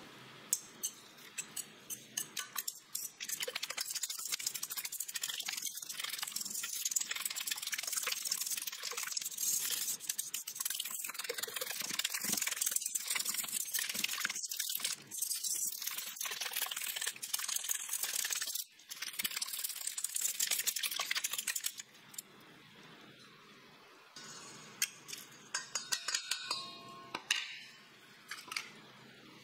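Wire whisk beating eggs in a stainless steel bowl: rapid, steady clinking of the wires against the metal, with a couple of brief pauses, stopping a little over two-thirds of the way through. A few separate clinks of the whisk on the bowl follow near the end.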